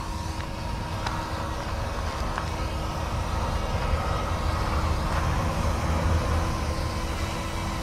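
YX Black Hawk UH-60 scale RC helicopter in flight: a steady motor whine over the low thrum of the rotor blades, swelling somewhat louder past the middle.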